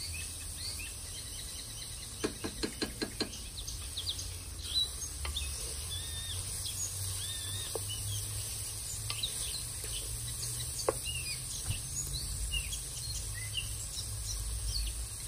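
Outdoor ambience of insects buzzing steadily at a high pitch, with birds chirping on and off. A quick run of about eight clicks comes a couple of seconds in.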